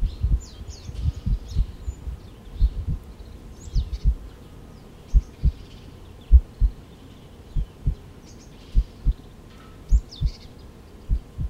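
Low, dull double thumps in a heartbeat rhythm, about one pair every second or so, busier and less regular in the first few seconds, with bird chirps and twitters scattered above them.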